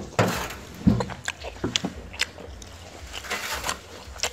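A person chewing food, with a metal spoon clicking against a ceramic bowl several times.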